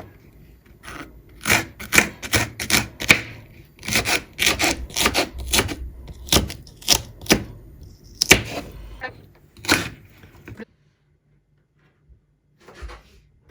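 Knife chopping okra on a cutting board: a quick run of sharp, uneven chops that stops suddenly about ten seconds in.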